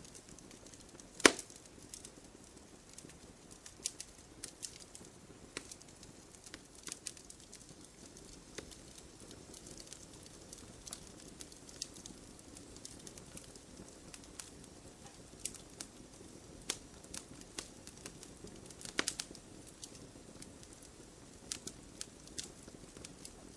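Wood campfire crackling: scattered sharp pops and snaps over a soft low hiss. There is a loud pop about a second in and a cluster of snaps about three-quarters of the way through.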